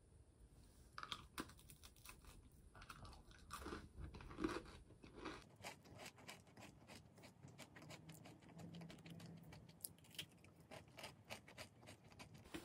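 Crunching and chewing of a caramelized puff-pastry palmier biscuit, a quiet run of many small crisp crunches.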